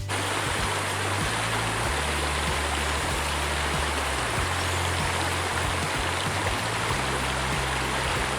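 Steady rush of water from a waterfall stream, with a music track's low bass notes changing underneath.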